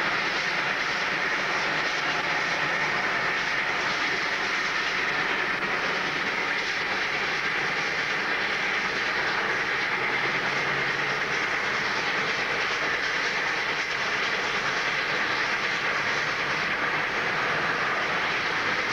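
Oil-fired 141R class 2-8-2 steam locomotive working hard upgrade with its train: a steady exhaust with the rumble and clatter of the wheels on the rails.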